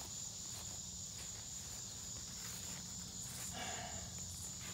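A steady high-pitched chorus of crickets, with faint rustling and footsteps through grass and leaves.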